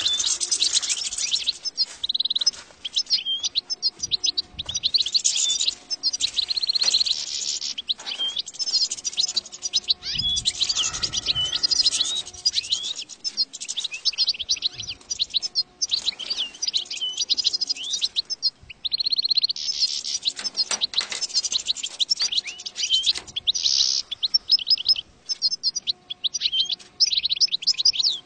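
European goldfinch song: fast runs of high twittering notes in long phrases, broken by short pauses every few seconds.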